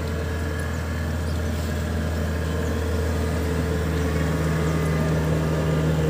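Kubota DC-70 Plus combine harvester's diesel engine running steadily, with a steady higher tone joining the low hum about halfway through.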